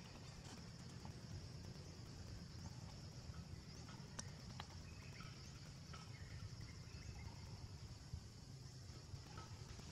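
Faint outdoor background: a steady high drone and a low rumble, with a few faint short chirps and a couple of small clicks about four seconds in.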